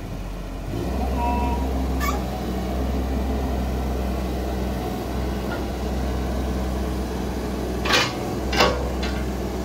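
JCB 16C-1 mini excavator's diesel engine running steadily while its hydraulics work the boom and dipper arm; the engine note steps up about a second in as the hydraulics take load. Two sharp knocks near the end.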